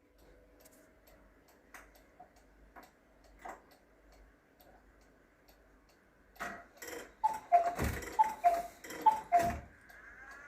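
Cuckoo clock ticking softly, then its strike train runs with mechanical clicks and the bellows sound the two-note cuckoo call, high then low, three times, each with a low thump from the mechanism.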